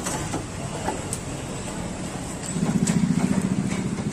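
A small engine idling, its low pulsing hum growing louder about two and a half seconds in, with a few light clicks over it.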